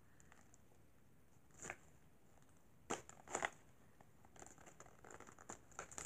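Faint crinkling and tearing of a small toy blind pack being opened by hand: a few separate crackles at first, then quicker, denser crinkles over the last couple of seconds.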